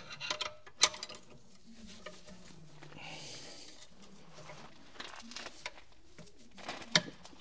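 A few sparse metallic clicks and taps of a wrench being fitted and worked on a car's brake caliper guide bolt, with a brief soft hiss about three seconds in.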